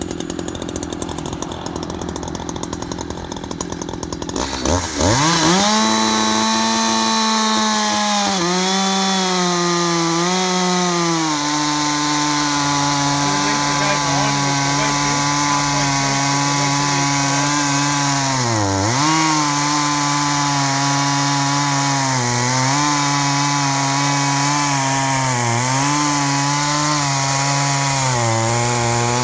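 Two-stroke chainsaw on a portable chainsaw mill ripping a log lengthwise. The engine revs up sharply about five seconds in, then runs at full throttle with a steady high note as the chain cuts. The pitch sags briefly under load about two-thirds of the way through and a few more times near the end.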